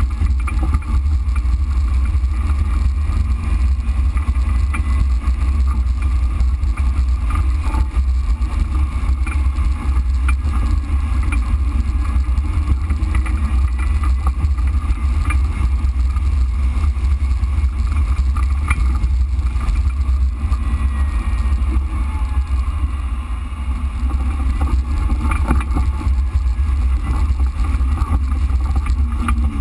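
Jeep Wrangler JK driving slowly along a wet, muddy off-road trail: a steady, heavy low rumble of engine and drivetrain, heard from a camera mounted on the Jeep.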